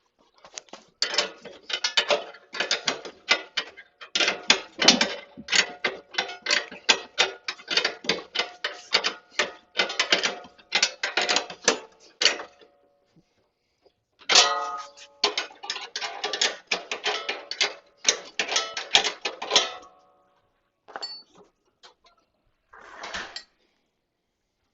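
Rapid metallic ratcheting clicks, several a second, in two long runs with a pause of a second or two between them, then two short bursts near the end.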